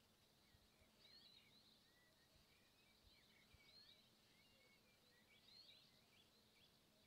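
Faint twittering of small birds: many short, quick chirps, some in clusters about a second in and again near the end, over a faint steady low hum.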